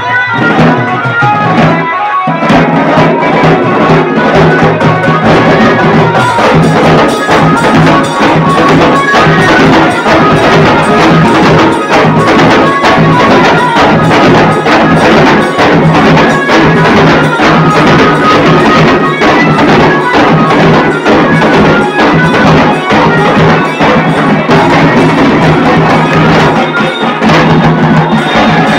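Dhol-tasa band drumming: several barrel-shaped dhols and tasa drums beaten with sticks together in a loud, dense, driving rhythm. A tune in the first two seconds fades out as the drumming takes over.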